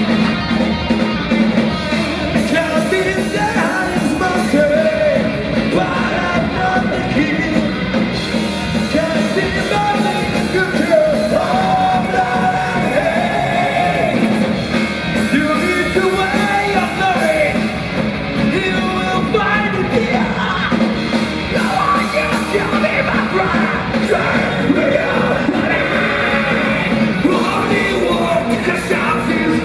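Heavy metal band playing live: electric guitar, bass guitar and keyboard under a loud sung and yelled lead vocal.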